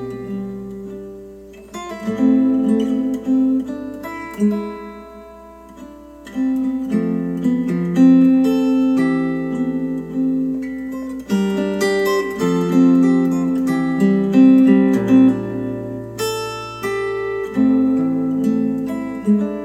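Acoustic guitar music of plucked and strummed chords, played back through KEF LS50 Meta bookshelf speakers.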